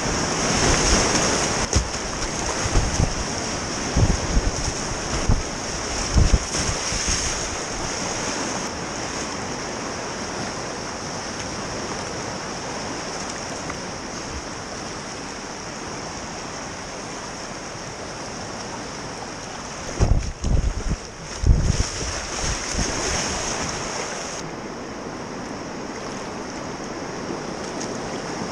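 Rushing whitewater heard from a kayak in river rapids, a steady roar of churning water. Low thumps on the microphone come in clusters during the first several seconds and again about twenty seconds in.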